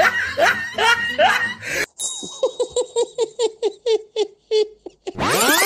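A voice chanting a rhythmic 'du-du-du' as the dog is swooped along. Then a person laughs 'ha ha ha' in short repeated bursts, about four a second. Electronic music with sweeping tones cuts in near the end.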